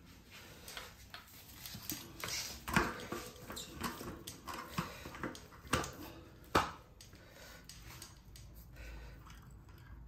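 Bicycle front wheel quick-release and hub being worked into the suspension fork dropouts by hand: light rustling with scattered sharp metal clicks and knocks, the loudest a little under three seconds in and twice around six seconds in.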